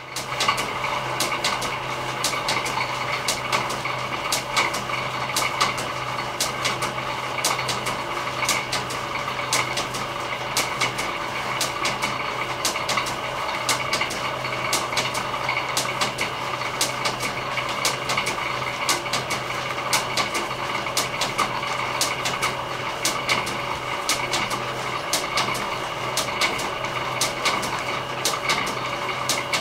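Workshop line-shaft belt drive running, with an electric motor driving shafting and flat belts to the machines. It makes a steady mechanical hum with frequent sharp clicks over it, starting abruptly at the outset.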